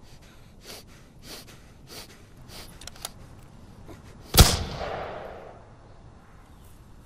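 A single gunshot about four seconds in: one sharp, loud crack that rings out and dies away over a second or so. Before it, a few faint, evenly spaced rustles.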